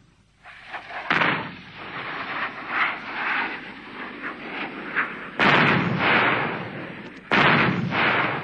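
A series of explosions: three heavy blasts, about one, five and seven seconds in, each dying away over a second or two, with smaller bangs between them.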